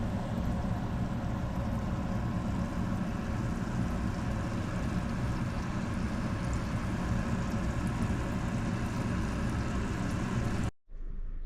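Steady machine drone with a low hum, running evenly and then cutting off abruptly near the end.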